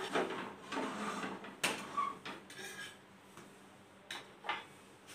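Metal spatula scraping and clinking against a flat tawa as a naan is turned over: a handful of short scrapes and sharp clicks, the loudest about a second and a half in, with only a few light taps near the end.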